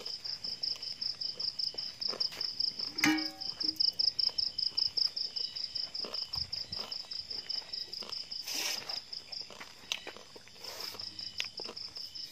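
A cricket chirping steadily in a fast, even run of high pulses, about six a second, which breaks off for about a second near the end. A brief squeak comes about three seconds in, and two short rustles follow later.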